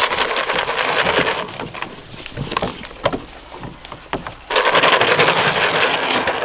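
Goat feed pellets poured from a plastic scoop into a wooden feeder trough, rattling as they hit the wood. There are two pours: one lasting about two seconds at the start, and a second from about four and a half seconds in.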